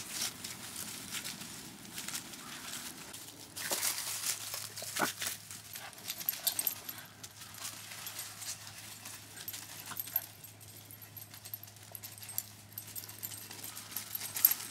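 Boston Terrier puppies playing on grass and dry leaves: irregular rustling and scuffling of paws, with the odd small puppy noise. It is busiest and loudest about four to five seconds in.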